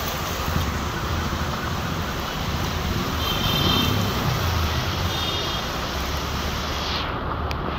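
Heavy rain and a car moving through floodwater make a steady wash of noise over a low, steady engine hum; the hiss thins out near the end.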